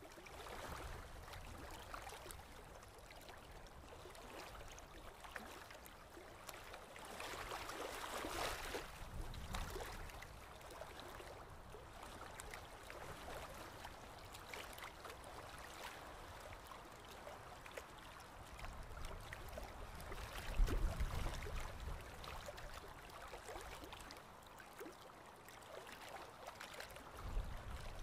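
A paintbrush stroking acrylic paint across paper: faint scratchy brushing with small clicks, and a few low bumps, the strongest a little after twenty seconds and another near the end.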